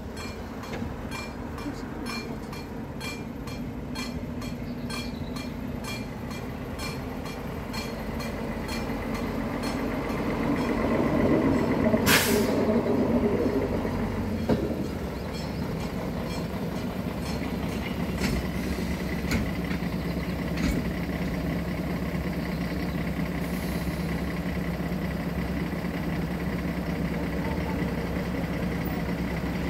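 Level-crossing mechanical bells ringing at about three strokes a second while a diesel railcar passes over the crossing, its running loudest between about ten and fourteen seconds, with a brief high squeal about twelve seconds in. After that a truck's diesel engine idles steadily.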